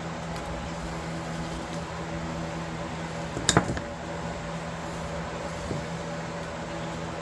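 Steady mechanical hum, like a motor or fan running, with one sharp tap or knock about halfway through and a fainter one near the end.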